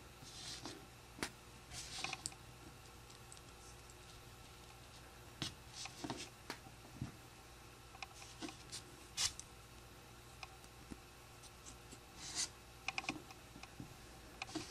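Small plastic Lego bricks being handled and pressed together: irregular faint clicks and short scratchy rustles of plastic on plastic.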